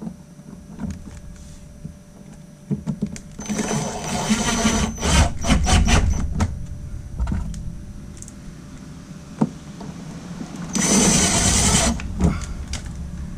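Cordless drill-driver running in two short bursts, about a second and a half and then a second long, with a steady whine, driving in the screw for a light-strip retaining clip; knocks and handling clatter in between.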